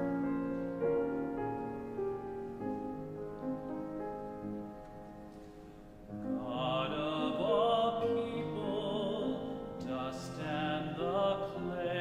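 Sung prayer response in a church service. Held keyboard chords play, and a singer with strong vibrato comes in about halfway through.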